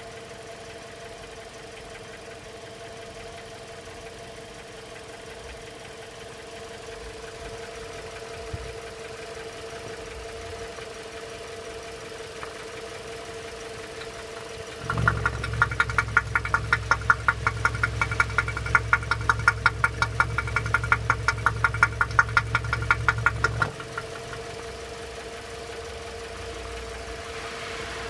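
Toyota RAV4 engine idling with a knock that thicker 10W-40 oil has not quieted; the owners first suspected the hydraulic lifters. About halfway through, a loud, rapid, even knocking sets in for about nine seconds and then cuts off abruptly. This matches the owner's report that the knock gets very strong when the oil filler neck is opened.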